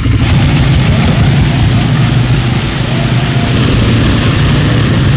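ATV (quad bike) engine running steadily under way, an even low-pitched sound with no break.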